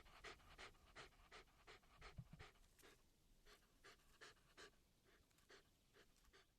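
Dog panting quickly, about three short breaths a second, growing fainter over the last few seconds, with a soft low thump about two seconds in.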